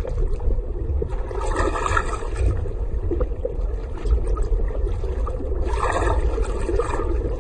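Underwater water ambience: a steady low rumble and rush of moving water, swelling twice, about a second and a half in and again near six seconds.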